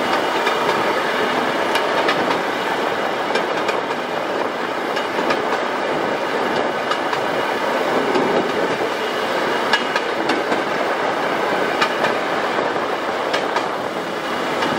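A rail motor car (draisine) running along narrow-gauge track: a steady motor and wheel rumble with occasional clicks as the wheels pass over rail joints.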